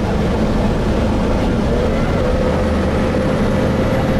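Inside a Gillig Phantom diesel transit bus under way: a steady low engine drone with road noise, and a steady whine that comes in about two seconds in.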